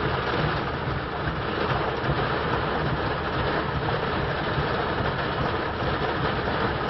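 Steady rushing noise of heavy storm rain on a car, heard from inside the cabin, with a low hum underneath.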